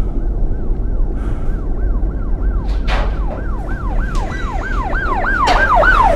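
Emergency-vehicle siren in yelp mode, sweeping quickly up and down about three times a second and growing louder as it approaches. A steady low hum runs underneath, and there are a couple of short knocks partway through.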